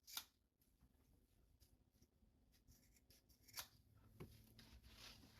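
A few faint snips of scissors cutting through hair braids, spread out with quiet gaps between them.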